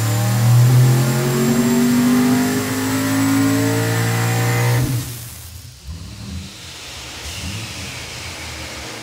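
Twin-turbocharged Chevrolet ZZ502 big-block V8 under full load on an engine dyno, its pitch climbing steadily as the revs rise. About five seconds in the pull is cut off and the engine drops back, with a few short pops and a faint whine falling in pitch as it winds down. Pulls on this engine were cut short because the dyno's fuel pump could not keep up and the engine began to run lean.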